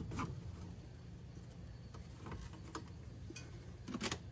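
Scattered light clicks and rustles of hands tying a brake caliper up with string trimmer line, with a small cluster of louder clicks near the end.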